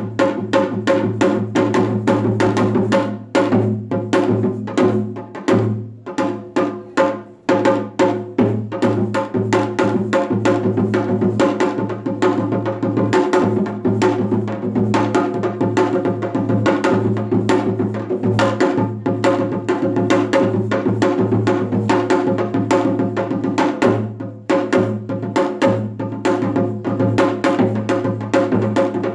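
Solo janggu, the Korean hourglass drum, played in seoljanggu style: a fast, dense rhythm of crisp stick strokes on one head and deeper mallet strokes on the other, easing off briefly twice.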